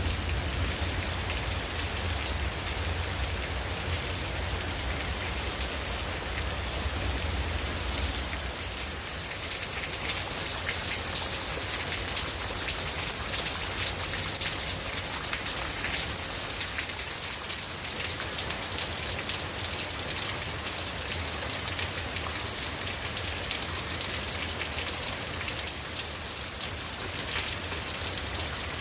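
Steady rain falling and pattering on surfaces, a little heavier about midway through, with a low rumble underneath for the first several seconds.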